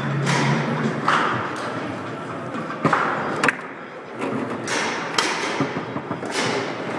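Foosball in play on a Leonhart table: sharp knocks of the ball struck by the men and of rods hitting the table, the loudest a little before three seconds in, at about three and a half, and just after five seconds.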